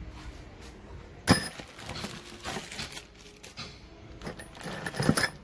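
New steel engine bolts handled in their cardboard box: a sharp metallic clink about a second in, lighter clicks and cardboard rustling, then another cluster of ringing clinks near the end.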